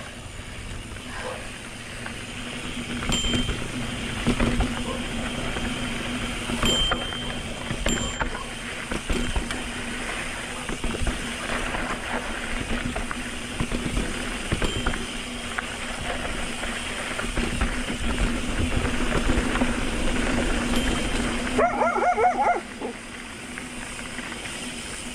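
Mountain bike rolling down a dirt trail: steady tyre and drivetrain rumble with a low hum, rattles and wind on the microphone, and a few sharp clicks with short squeaks. About three-quarters through, a brief pitched call cuts in.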